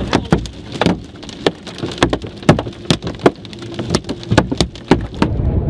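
Storm debris and rain pelting a car during a tornado, heard from inside the cabin: many sharp, irregular hits against the body and glass over a steady low rumble of wind and road noise. Window glass has been broken and shards are blowing into the car.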